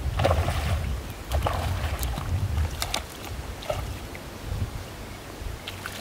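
Water splashing and sloshing in short bursts as a hooked fish is fought on a long pole rod in shallow water, over a low rumble of wind on the microphone.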